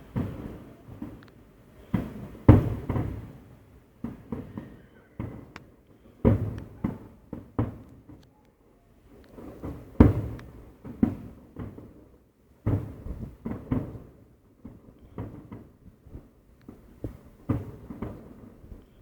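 Fireworks going off: an irregular series of booms and bangs, each with a short rumbling tail. The loudest come about two and a half seconds in and about ten seconds in.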